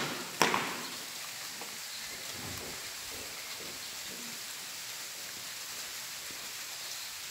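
Steady low hiss of background noise, with two sharp clicks within the first half second.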